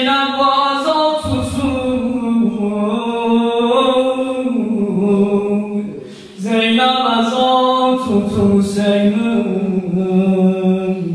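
A man chanting an unaccompanied Muharram lament (mersiye) for Imam Husayn into a microphone, in long, wavering held notes. He breaks off for a breath about six seconds in, then resumes.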